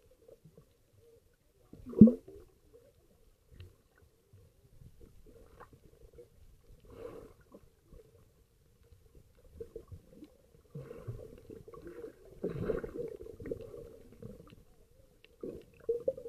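Muffled underwater sound picked up by a camera submerged in the sea: gurgling bubbles and the movements of swimmers nearby, with a loud knock about two seconds in.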